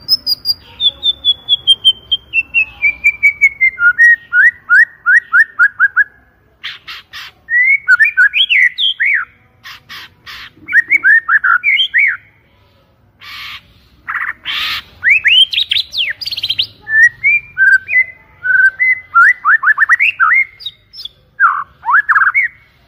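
White-rumped shama singing loudly: a run of rapid notes falling steadily in pitch, then a fast series of upswept whistles. After that come varied whistled phrases broken by several harsh, rasping notes, and the song cuts off suddenly near the end.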